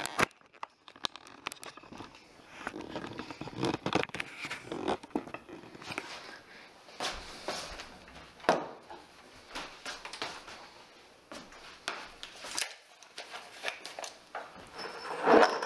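A flat-pack cardboard box being cut open and handled: irregular scrapes, rustles and tearing of cardboard with scattered light knocks, the sharpest knock about halfway through.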